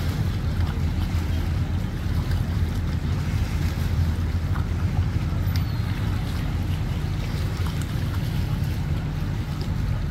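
Boat engines idling in a steady low rumble, with wind buffeting the microphone.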